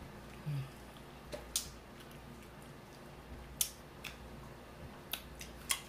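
Eating sounds: a few short, sharp clicks, spaced irregularly about a second apart.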